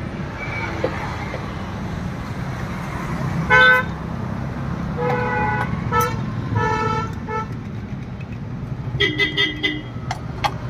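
Road traffic rumbling steadily with several vehicle horns honking: a loud short toot about three and a half seconds in, more toots between five and seven seconds, and a quick run of beeps around nine seconds.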